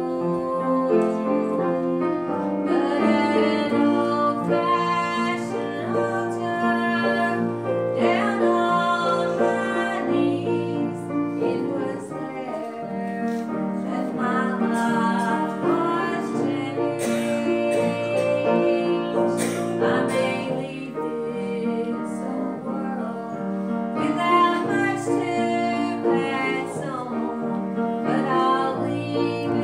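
A woman singing a solo, accompanied on a grand piano.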